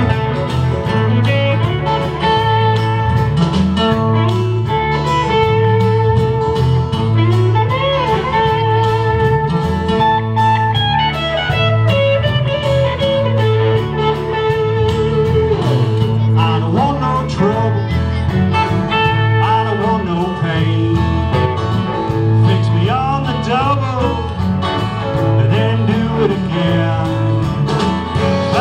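Live band playing an instrumental passage: an electric guitar plays a lead line with bent, wavering notes over strummed acoustic guitars, a steady bass line and drums.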